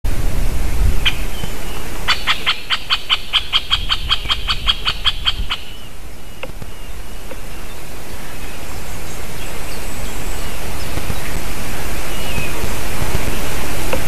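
Great spotted woodpecker giving one sharp 'kik' and then a very regular series of sharp notes, about four a second, for about three and a half seconds. A steady hiss of wind noise grows louder through the second half.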